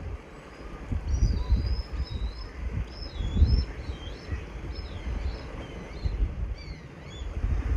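A bird calling in a quick series of high, swooping chirps, over a low rumble of wind and surf.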